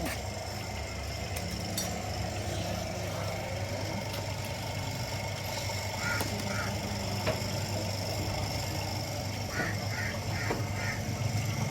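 A car engine idling steadily, with a few sharp clicks and brief animal calls at about six seconds and again around ten seconds.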